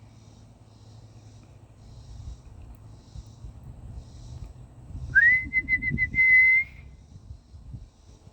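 A person whistling to call bluebirds down to be fed. One whistle about five seconds in slides up, warbles briefly, then holds a steady high note for over a second.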